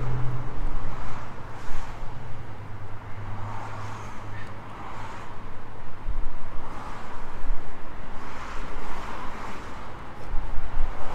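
Outdoor traffic and wind noise: a steady low hum under a rushing sound that swells and fades every second or two, with wind buffeting the microphone.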